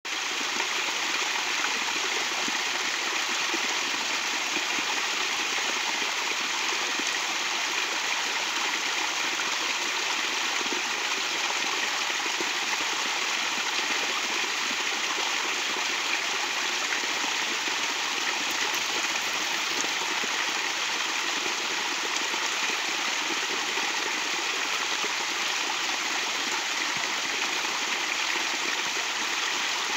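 Small stream cascading over rocks into a shallow pool, a steady, even rush of running water.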